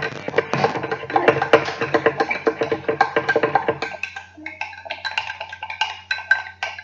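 A spoon stirring briskly in a cup, a rapid run of clicking taps against its sides that thins to slower, sparser taps about four seconds in, as baking soda is mixed into boric acid water to make the slime activator.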